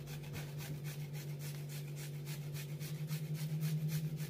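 Garlic clove rubbed back and forth on a stainless steel hand grater: quick, rhythmic scraping strokes, several a second, getting a little louder toward the end, over a steady low hum.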